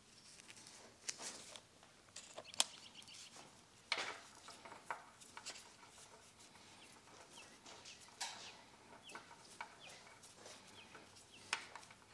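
Faint clicks, taps and scrapes of metal parts being handled and fitted at the VANOS unit of a BMW M54 engine during a VANOS rebuild, with a sharp click about two and a half seconds in and another near the end. A few faint short chirps sound in the background.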